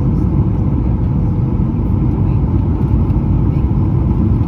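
Steady, loud roar inside a Boeing 737-900 airliner's cabin: engine and airflow noise, heaviest in the low rumble, with a faint steady hum running through it.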